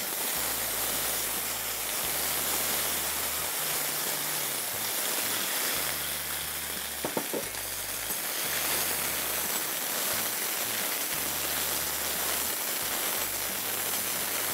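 Cut brinjal (eggplant) pieces sizzling steadily in hot oil in a steel kadai as they are tipped in and stirred.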